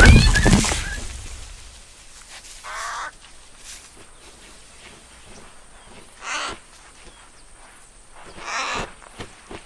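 A loud thud-like hit at the start that fades over about a second, followed by three short, harsh animal calls spaced a few seconds apart.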